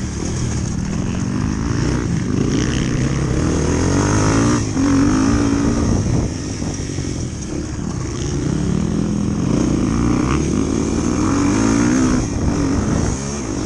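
Motorcycle engine running under way, its pitch rising and falling repeatedly with the throttle.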